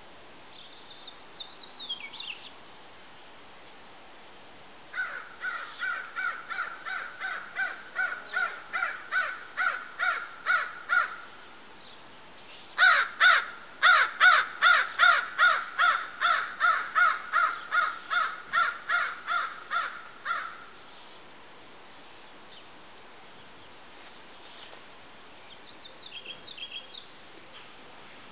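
Crow cawing in two long, quick series of about two to three harsh caws a second, the first starting about five seconds in and the second, louder one about thirteen seconds in. A few faint, high, thin bird calls come near the start and near the end.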